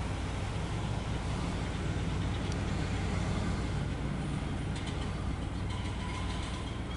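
CSX diesel locomotive engine running with a steady low drone as the coal train comes slowly toward the microphone.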